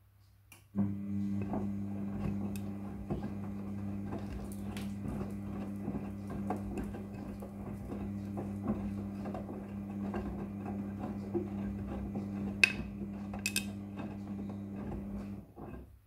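Front-loading washing machine tumbling a load of jeans in soapy water: a steady motor hum with a scatter of clicks and knocks from the turning drum. It starts about a second in and stops shortly before the end, with two sharper clacks near the end.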